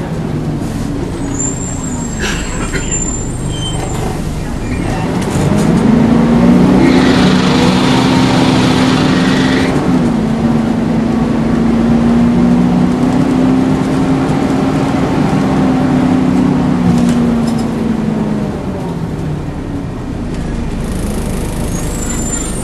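Volvo Wright Renown bus running. The engine note rises about five seconds in, holds steady under load, then falls away. Brief high-pitched screeches come near the start and again near the end, with a hiss for a few seconds early in the pull.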